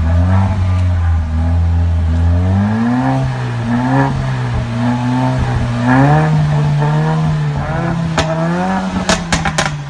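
Mercedes-AMG CLA 45's 2.0-litre turbocharged four-cylinder engine being revved: it holds low for a couple of seconds, then rises and falls through several blips and holds higher revs. Near the end come one sharp exhaust crack and then a quick run of about five crackles.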